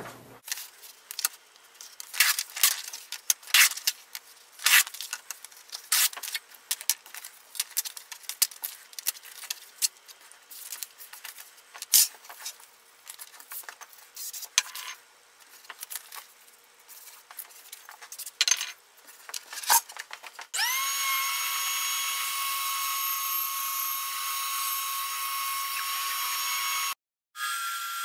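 Irregular sharp clicks and taps for most of the time, then a power tool's motor starts up with a quick rising whine and runs steadily. After a brief cut near the end, a bandsaw runs with a steady whine as a piece of wood is fed through it.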